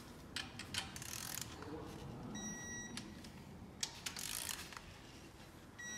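A torque wrench ratcheting and clicking on the cylinder head bolts of a C6 Corvette V8 being torqued down, on the second pass to 50 lb-ft. Scattered short clicks run through, and a short electronic beep sounds about halfway through.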